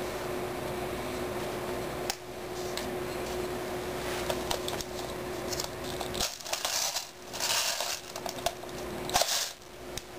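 Handling noise from a rifle on a polymer bipod being moved by hand: light clicks and taps, then louder rustling scrapes a little past the middle and again near the end, over a steady low hum.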